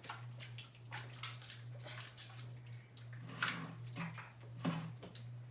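Hands squishing and splashing through wet, half-activated slime made of glue and activator: a run of irregular wet squelches and splashes, with two louder splashes in the second half. A steady low hum runs underneath.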